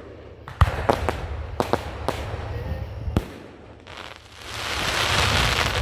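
Aerial fireworks going off: about six sharp bangs in the first three seconds, the loudest about half a second in, then a hiss that swells toward the end.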